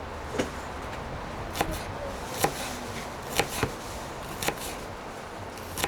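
Kitchen knife chopping on a wooden cutting board: sharp knocks at an uneven pace of about one a second.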